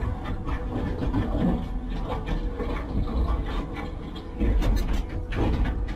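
Heavy machinery running with a low rumble and irregular metallic clanks and knocks, loudest about four and a half seconds in.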